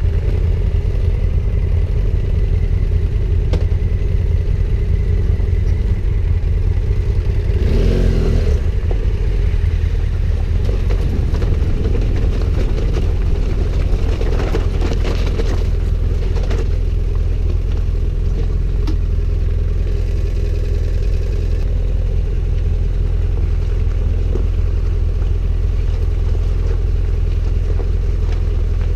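Adventure motorcycle engine running on the move, over a heavy low rumble. About eight seconds in the engine note swells up and back down briefly.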